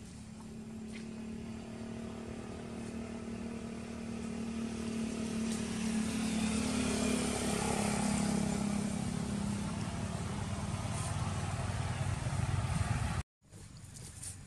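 A steady engine hum that grows louder over the first several seconds and holds, then cuts off abruptly near the end, leaving a quieter outdoor background.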